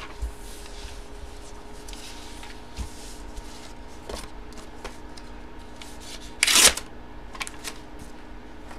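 Paper cards and envelopes being handled and shuffled on a table, a soft rustling with a few light taps and one short, loud rustle of paper about six and a half seconds in.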